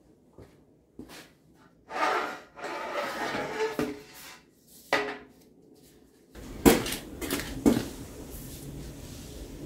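Steel brackets and tubing being handled and fitted: scraping and rattling, then sharp metal clanks and knocks, the loudest a little past halfway.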